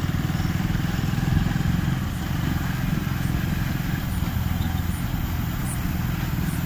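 Motorcycle engine running steadily while riding, a low, even rumble heard from the bike itself.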